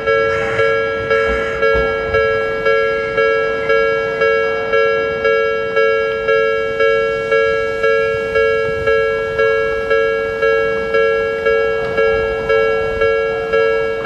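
Japanese railway level-crossing warning bell ringing: an electronic two-tone ding repeating at an even pace, somewhat under two strikes a second, each strike dying away before the next.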